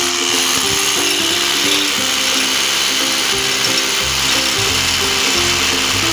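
Background music with a stepping melody and a bass line that comes in about halfway through, over a steady high hiss of a running power tool.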